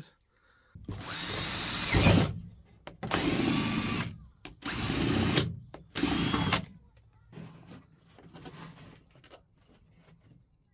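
Cordless drill boring holes through a plastic van ceiling panel for wiring, in four separate runs. The first run lasts about a second and a half and the others are shorter, with short pauses between them.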